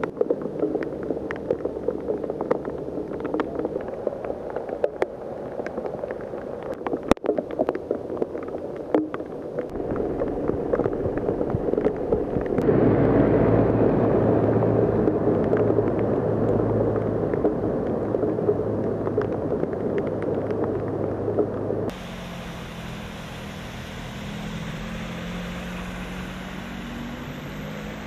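Heavy rain on a flooded street, with many sharp ticks of drops. About halfway through comes a louder, steady rush as a Mercedes-Benz Citaro city bus drives through deep floodwater with its engine humming. After a sudden cut, a car pushes through standing water, its engine pitch rising and falling.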